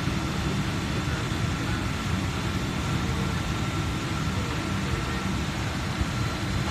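Steady airliner cabin noise heard through a phone's microphone: an even low rumble and hiss with a faint constant whine.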